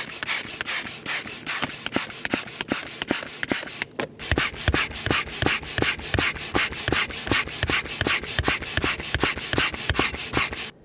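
Manual air pump worked in quick, even strokes, about three to four puffs of air a second, topping up a thin self-inflating camping mattress that has not filled on its own. The pumping breaks off briefly about four seconds in, then resumes with stronger strokes.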